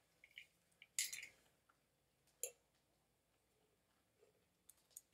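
Near silence with a few faint clicks, a short rattle about a second in and a small knock midway: a loose piece shifting inside a plastic coin bank as it is tipped and turned.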